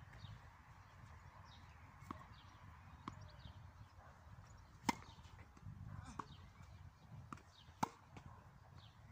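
Tennis rally: sharp pops of rackets striking the ball and the ball bouncing on the hard court, about six in all, the two loudest near the middle and near the end.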